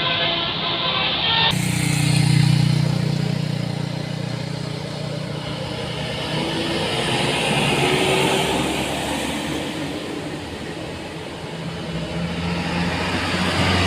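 Heavy diesel bus engines passing on a steep hill road: a deep engine note, loudest about two seconds in, then easing off while a fainter engine pitch rises, and another engine building near the end. A multi-tone horn chord cuts off about a second and a half in.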